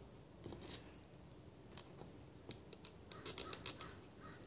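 Faint clicks and scratches of a soldering iron tip working against a row of solder-flooded pins, with a quick run of sharp clicks about three seconds in.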